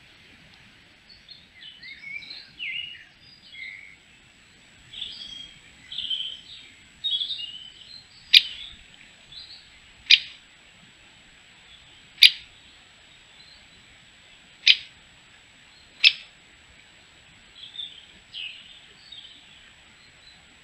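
Small songbirds chirping in the first half, then five sharp single 'kik' calls of a great spotted woodpecker, spaced about one and a half to two and a half seconds apart, with a few soft chirps near the end.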